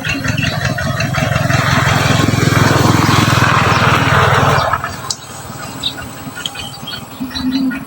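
Society finch nestlings begging with a rapid, buzzing chatter that swells loudly about a second and a half in and drops away about five seconds in, followed by scattered short high chirps.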